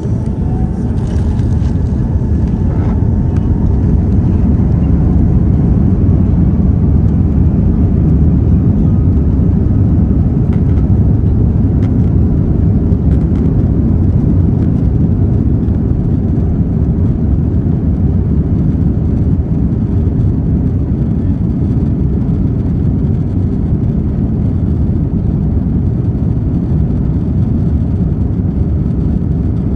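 Inside an airliner's cabin while it taxis: a steady low rumble of the jet engines and airframe.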